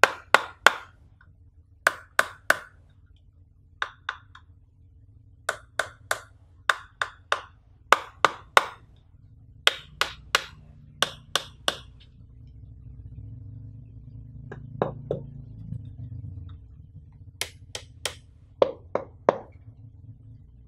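Fingers tapping on a power bank's hard casing in quick groups of two to four sharp taps, repeated every second or two, with a soft handling rustle in the middle.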